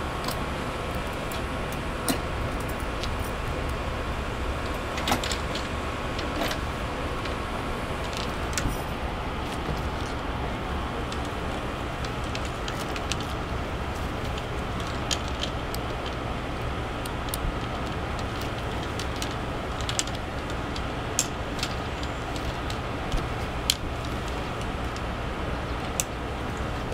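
Scattered clicks and knocks of a golf bag being handled and its two halves fitted together, over a steady low outdoor rumble.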